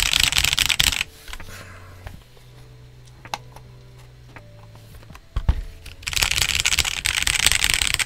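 Fast typing on a Koorui MK082 mechanical keyboard: a dense run of key clacks for about a second, then quieter handling of the board with a few scattered clicks and a knock, then another burst of rapid typing for the last two seconds.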